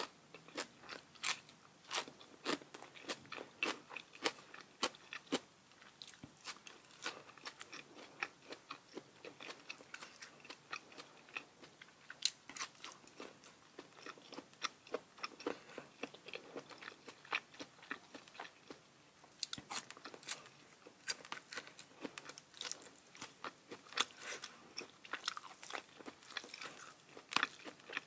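A person chewing and biting crisp food close to the microphone, many sharp irregular crunches between softer chewing.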